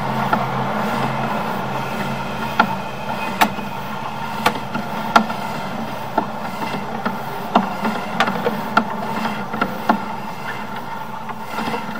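Sewer inspection camera push cable being fed down the line over rock debris: sharp clicks and knocks about once a second over a steady hum.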